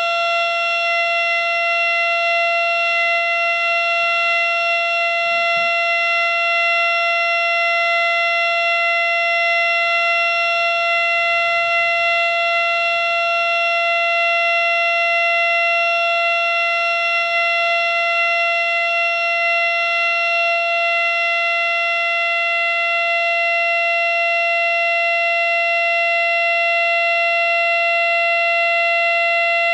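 3D-printed miniature Fedelcode Model 7 siren sounding a full alert at speed: one steady, unwavering wail held at a single pitch with several overtones.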